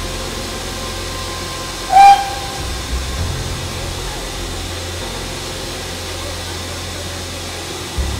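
A steam locomotive's whistle gives one short, loud toot about two seconds in, over a steady low rumble and hiss.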